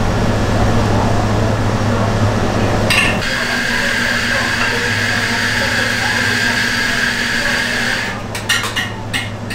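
Steady machine hum of kitchen equipment, joined by a steady high whine from about three seconds in. Near the end, several light clicks and clinks, like utensils or dishware handled.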